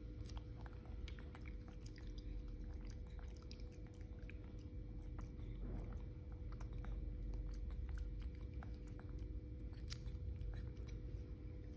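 A young macaque chewing tangerine segments: irregular small clicks and smacks of chewing.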